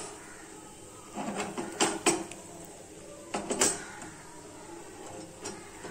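Cashews and raisins frying in hot ghee in a small metal pan: a faint sizzle broken by two short bursts of crackling, about a second in and again a little past the middle.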